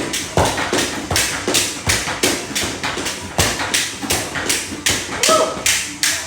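Exercise ropes slapping the ground in a steady rhythm, about three slaps a second, with a short vocal sound near the end.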